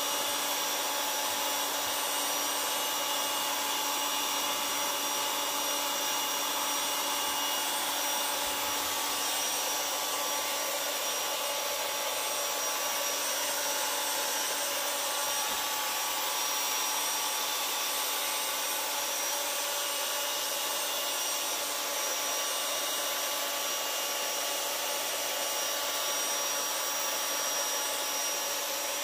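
Steady, unchanging machine whir with a constant hum running under it, like a small motor or fan.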